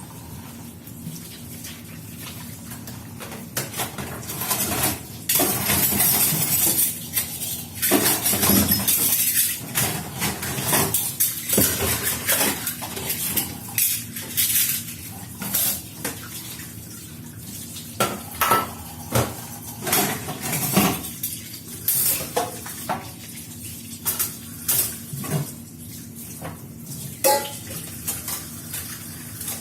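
Dishes and cutlery clinking and clattering as they are washed by hand at a kitchen sink, with the tap running for a stretch in the first third.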